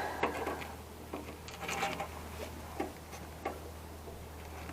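Light, scattered clicks and taps from handling small server-rack parts, over a steady low hum.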